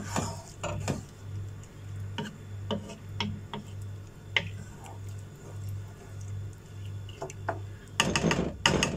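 A wooden spoon stirs rice into a large coated pot of boiling stock, knocking and scraping against the pot in scattered clicks, with a louder clatter near the end. A low hum pulses steadily underneath.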